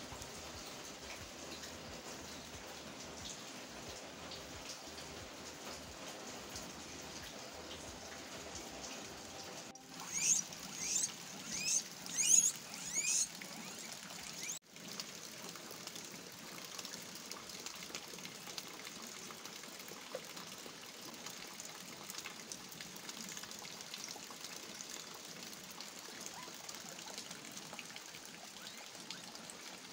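Steady rain falling and trickling. About ten seconds in, a quick run of about six loud, high-pitched guinea pig squeals.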